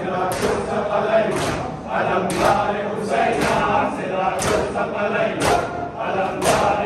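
Crowd of men chanting a noha in unison while beating their bare chests with open hands (matam), the slaps landing together about once a second.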